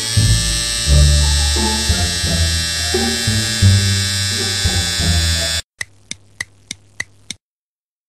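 Cartoon electric razor buzzing steadily over background music. The buzz cuts off about five and a half seconds in, and six quick, evenly spaced ticks follow.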